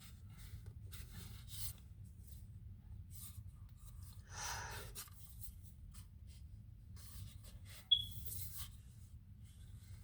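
Faint, intermittent rubbing and handling noises, with a louder rustle about four and a half seconds in and a short sharp click about eight seconds in.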